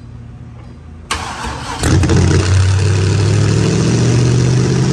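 LS V8 with a big aftermarket cam cranked on the starter about a second in, catching a moment later and running loud and steady at a high idle with the throttle closed. The owners put the high idle down to a vacuum leak through the uncapped EGR hole in the intake.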